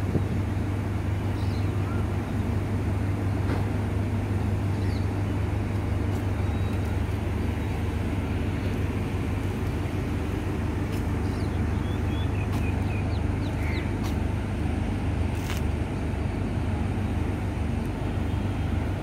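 Diesel engines of two Sri Lankan Railways DMU trains, a Class S13 and a Class S11, running with a deep, even, steady hum. A few faint bird chirps come in about two-thirds of the way through.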